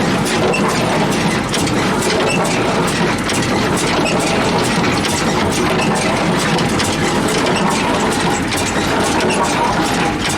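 John Deere hay baler running: a loud, steady mechanical clatter of rapid clicks and knocks over the drone of an engine.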